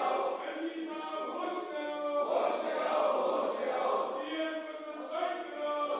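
Legislators chanting protest slogans in unison, a group of voices calling out short phrases over and over.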